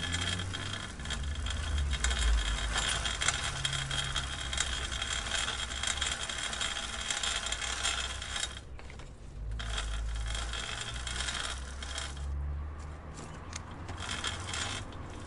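Bicycle chain and drivetrain clicking and rattling fast and densely while the bike is ridden, over a low rumble. It drops out briefly a little past halfway, and in the last few seconds thins to scattered separate clicks.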